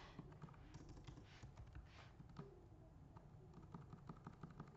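Faint typing on a computer keyboard: scattered key taps, then a quicker run of keystrokes near the end.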